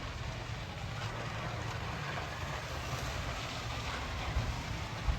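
Steady low rumble of idling heavy vehicle engines, with a couple of short thumps near the end.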